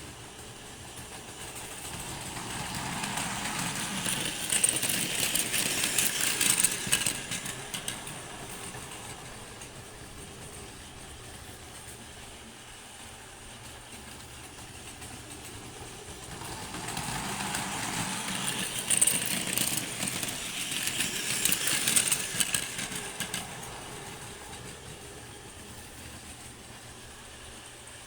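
Two Hankyu electric trains passing through the station one after the other, each swelling up over a couple of seconds, peaking with loud wheel-on-rail noise and sharp clattering for about four seconds, then fading.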